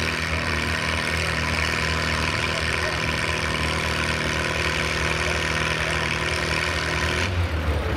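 Antique Farmall tractor's engine running steadily under load as it drags a weight-transfer pulling sled through dirt. About seven seconds in, the high hiss drops away abruptly and the engine note changes.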